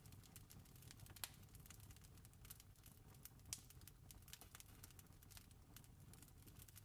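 Campfire crackling: scattered sharp pops and snaps, the loudest about a second in and again about three and a half seconds in, over a faint steady low rumble.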